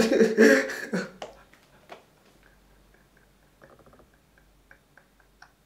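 A man laughing hard: a loud burst of laughter in the first second or so, trailing off into faint, short breathy gasps as he laughs almost silently.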